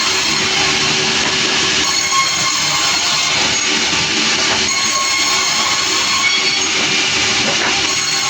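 Sawmill saw running and cutting through a log: a loud, steady, hissing screech whose texture shifts a few times as the cut goes on.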